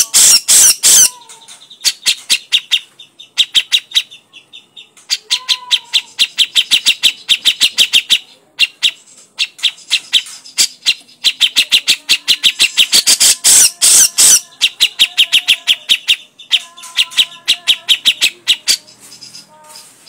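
Grey-cheeked bulbul (cucak jenggot) giving its harsh chattering 'crecetan' call: rapid rattling series of sharp notes in several bouts, with short pauses between them.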